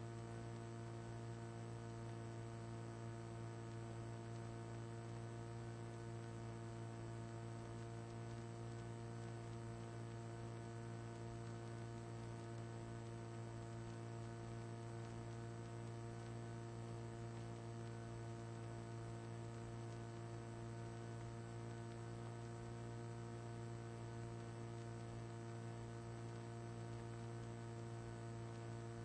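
Steady low electrical mains hum with a stack of higher overtones, unchanging, and no other sound.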